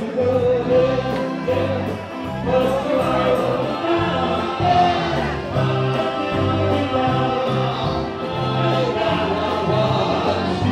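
Band music with sustained, choir-like vocal harmonies held over a bass line that steps from note to note.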